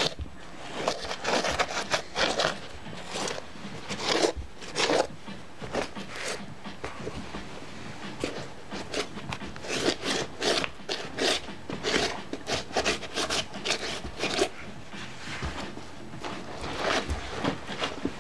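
JCB rigger boot's muddy sole wiping back and forth over white Nike Air Max 95 trainers: rubbing and scraping in repeated, irregular strokes.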